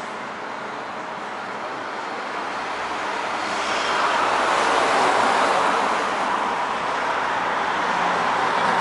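Road traffic noise, with a passing vehicle swelling to its loudest about halfway through and then easing off.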